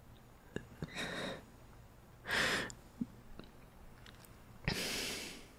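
A man's breathing close to the microphone during a pause in emotional speech: a short breath about a second in, a louder one at two and a half seconds, and a longer exhale near the end, with a few faint mouth clicks between them.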